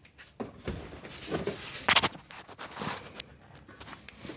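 A series of irregular knocks and rustles from something being handled, the loudest a sharp knock about two seconds in.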